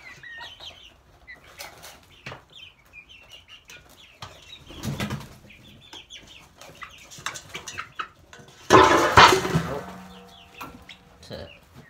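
Young Plymouth Rock and Buff Orpington chickens clucking and peeping in short, high calls. A loud rustling burst comes about nine seconds in.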